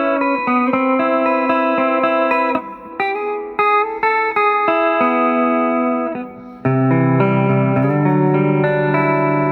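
Electric guitar on a T-style build played through its full (unsplit) Oripure Alnico 5 neck humbucker. Quick picked notes for the first couple of seconds, then a few single notes with short breaks, then a chord left ringing from about two-thirds of the way in.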